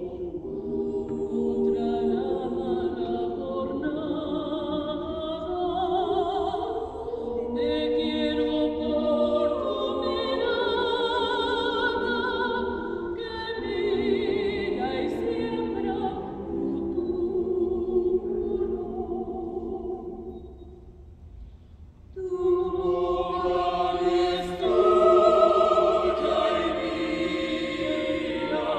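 A vocal ensemble sings sustained chords in several parts. The sound thins out and nearly stops about twenty seconds in, then comes back louder with a fuller chord.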